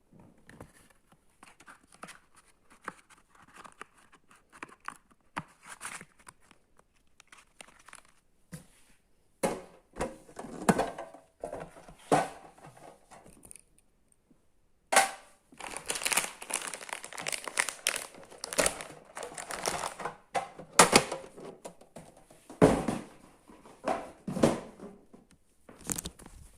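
Packaging being handled and opened: plastic or paper crinkling and tearing in irregular bursts, with a short pause about halfway through and louder, busier crinkling after it.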